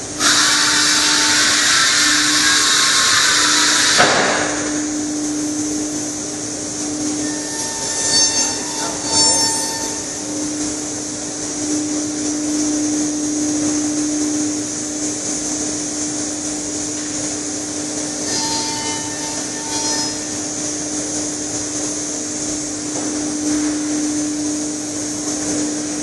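CNC lathe machining a wooden stair post: a loud cutting noise for the first four seconds stops abruptly, leaving the machine's steady hum with a constant tone. Short high whines come twice, about eight and eighteen seconds in.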